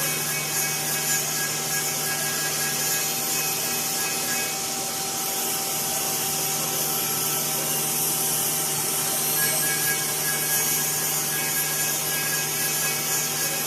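5-axis CNC router's HSD spindle running and machining wood: a steady whine of several held tones over a constant high hiss, with no break.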